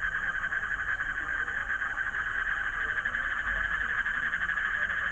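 Green frogs calling in a steady, unbroken chorus, a rapidly pulsing trill.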